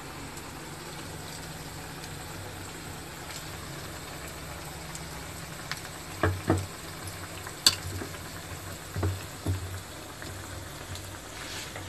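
Battered cauliflower bajji deep-frying in a steel kadai of hot oil: a steady bubbling sizzle. Several sharp knocks come in the second half.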